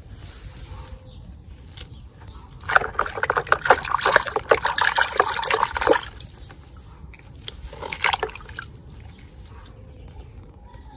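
A hand splashing and rummaging in a plastic basin of muddy water, with sloshing and dripping. It starts about three seconds in and lasts about three seconds, then a shorter splash follows about two seconds later.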